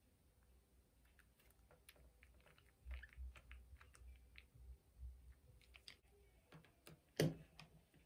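Faint, irregular small clicks and ticks of a precision screwdriver turning a tiny screw in an iPhone 6 Plus display's metal shield plate, with one louder knock about seven seconds in.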